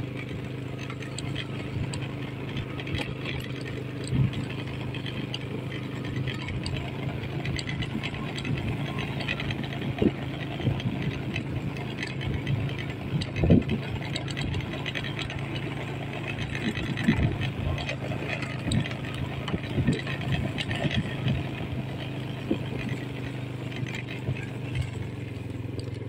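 Small motorcycle engine running at a steady low speed, with rattling and a few sharper knocks from the bike jolting over a rough dirt track.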